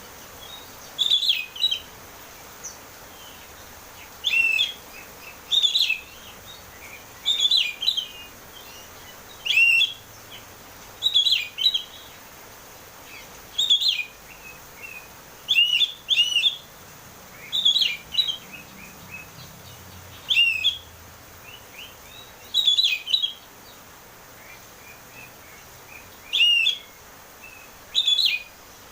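Oriental magpie-robin (kacer) singing loud, short whistled phrases, one every one and a half to two seconds: a full open-throated song (ngeplong) played as a lure to set a caged bird singing.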